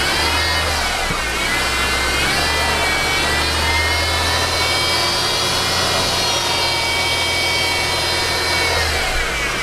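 2013 Mercedes C250 engine being revved with the hood open, a high-pitched whine like a dentist's drill rising and falling with engine speed. The engine climbs, holds at higher revs, and drops back near the end. The whine comes from a weak serpentine-belt idler pulley that gets noisy under belt tension.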